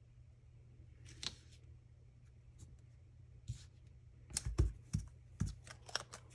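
Cardstock die-cut pieces being handled and pressed together on a cutting mat: a soft paper rustle about a second in, then a run of light taps and clicks in the second half as the stacked scalloped labels are lined up and pressed into place.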